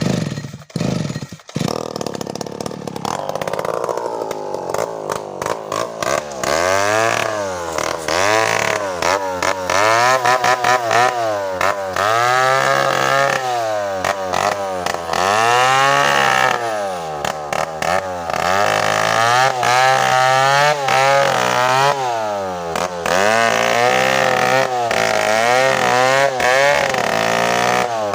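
Two-stroke chainsaw engine starting up about three seconds in after a few knocks, then running with its speed rising and falling over and over, roughly every two seconds.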